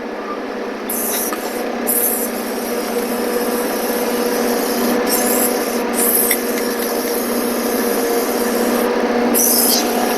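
Aerosol can of white lithium grease spraying in several short hissing bursts onto a forklift's lift chains and rams, over a steady hum.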